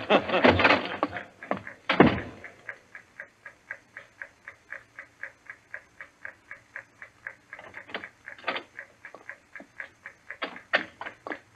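Time-bomb fuse ticking like a clock, a steady light tick about four times a second, as a radio-drama sound effect. A sharp knock comes about two seconds in, and a few louder knocks come near the end.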